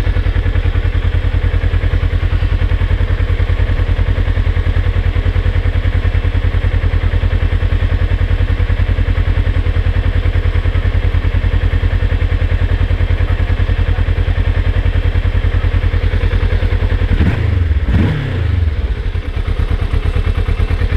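Sport motorcycle engine idling steadily with an even, rapid firing pulse. Near the end, the engine note briefly dips and swings back up.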